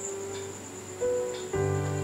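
Background film score of sustained held notes. A new higher note comes in about a second in, and a fuller, louder low chord sounds from about halfway.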